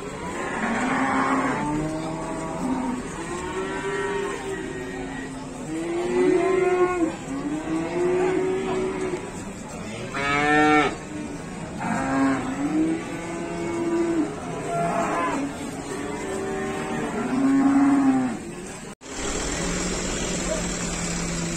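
Several cows mooing over one another, long rising-and-falling calls at different pitches, one after another. Near the end the calls cut off abruptly and a steady low engine hum follows, from a Mitsubishi truck.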